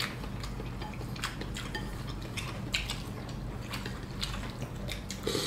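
People eating noodle soup: light clinks of chopsticks and spoons against ceramic bowls, with chewing and small eating noises, over a low steady hum.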